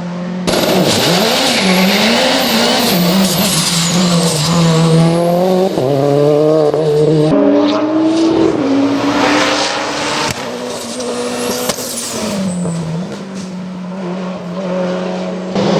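Mitsubishi Lancer prototype race car engine revving hard, its pitch climbing and dropping repeatedly through gear changes, with high whistling squeals sweeping up and down over the engine note.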